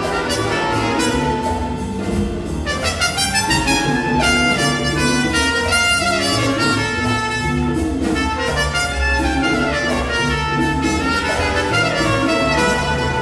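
Student jazz big band playing, the saxophones, trumpets and trombones together over the rhythm section.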